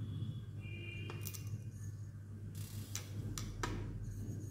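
Precision screwdriver working the small screws of a hard disk drive's platter clamp on the spindle: several light, sharp metallic clicks and ticks.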